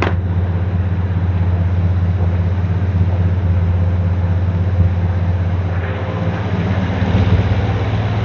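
1971 Chevrolet C10 pickup's engine idling steadily.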